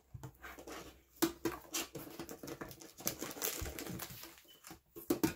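Foil booster packs being pulled from a clear plastic blister insert in a metal collector's tin: crinkling foil and rustling, clicking plastic, with a few sharper clicks in the first two seconds.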